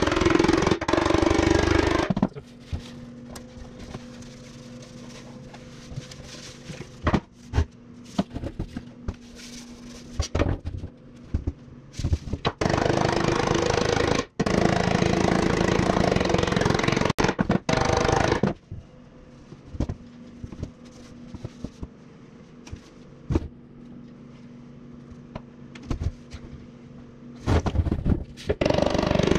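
Metalworking on a steel motorcycle fuel tank: three loud bursts of a power tool, the middle one about six seconds long. Between them a steady machine hum runs with scattered sharp knocks and taps.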